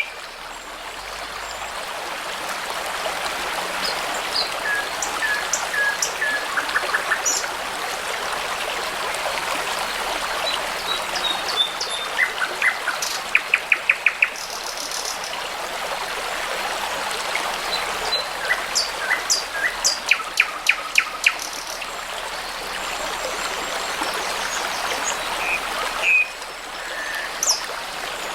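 A small brook babbling steadily, with songbirds singing over it in short phrases, some of them quick series of repeated notes.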